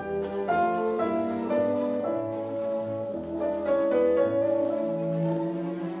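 Symphony orchestra and grand piano playing classical music, with held chords in the orchestra.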